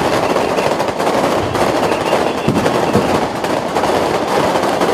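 Strings of firecrackers going off in a dense, continuous crackle of rapid pops, with a few heavier bangs about halfway through.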